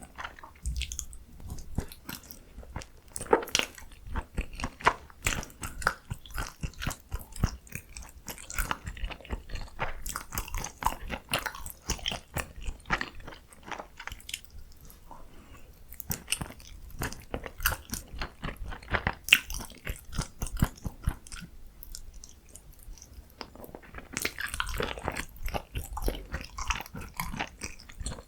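Close-miked chewing and biting of food, many short irregular clicks and crunches in quick succession, growing denser and hissier about 24 seconds in.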